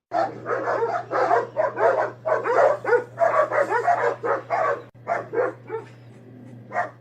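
A dog giving a fast run of short yips and whines, about three a second, over a steady low hum.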